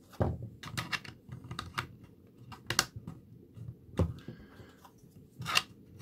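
Hard plastic clicks and knocks as 3D-printed silk PLA tiles are handled and pressed onto the front of a printed box. The clicks are irregular, with a few louder knocks among them.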